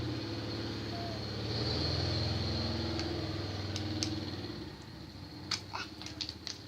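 A steady low engine-like hum that grows louder through the middle and then fades, with a few small sharp clicks near the end.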